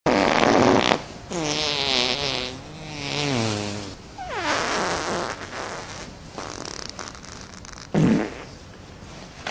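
A long fart noise with a wobbling pitch, after a short burst of noise at the start; it is the noise that is then denied with 'That wasn't me.'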